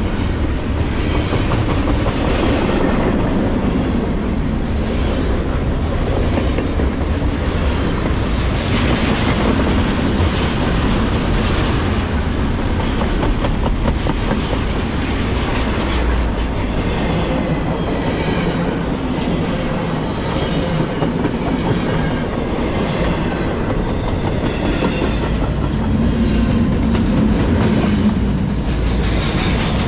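Double-stack intermodal freight train rolling steadily past close by: a continuous rumble of steel wheels on rail with a clickety-clack over the rail joints. Two brief high squeals come through, one about a third of the way in and one past the middle.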